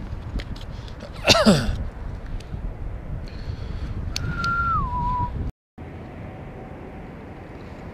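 A man whistling to himself: a loud downward swoop about a second in, then a held note that slides down a step about four seconds in, over a low rumble. The sound cuts out for a moment about halfway through.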